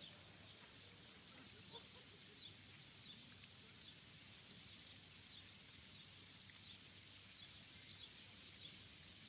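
Near silence: faint outdoor ambience with a few faint bird chirps scattered through it.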